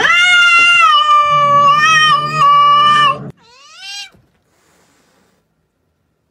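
Domestic cat yowling at another cat in a standoff: one loud, drawn-out yowl of about three seconds, then a shorter call that rises and falls.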